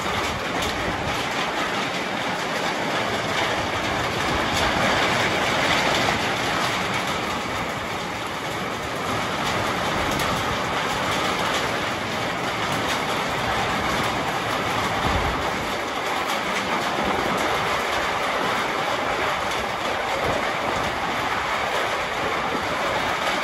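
Heavy rain pouring down steadily, a dense even rush with scattered sharp taps of drops, and a brief low thump about two-thirds of the way through.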